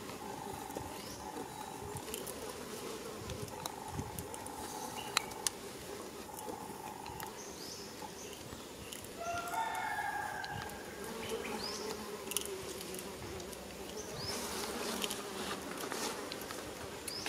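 Insects buzzing in an on-off drone, with short high bird chirps. About ten seconds in, a drawn-out rising animal call lasts a couple of seconds.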